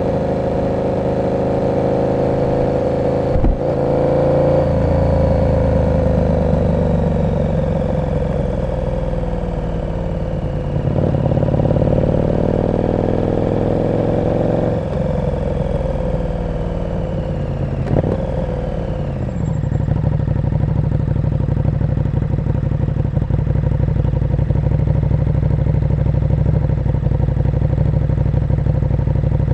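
KTM 1290 Super Duke R V-twin engine with an aftermarket exhaust, ridden in traffic: the engine note falls and rises several times as the bike slows and pulls away, with two sharp clicks along the way. About two-thirds in, it settles to a steady, lumpy idle.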